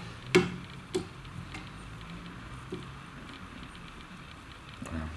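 A few light clicks and taps as fingers handle the thread and synthetic fibres at a fly-tying vise, two sharper ones in the first second and fainter ones after, over a steady low hum.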